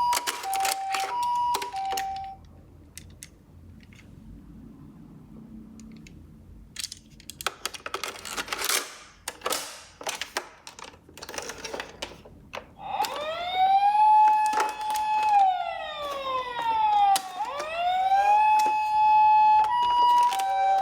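Electronic toy ambulance sirens. A two-tone hi-lo siren sounds briefly and stops; after a quieter spell there are several seconds of plastic clattering and rattling. Then a wailing siren rises, holds, falls and rises again, and the two-tone hi-lo siren starts up again near the end.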